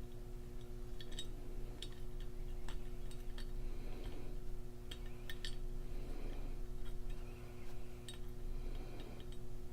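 Scattered light metallic clicks and clinks of small rifle parts and a homemade pivot pin tool being worked as the front takedown pin and its detent spring are pressed into an AR lower receiver, over a steady low hum.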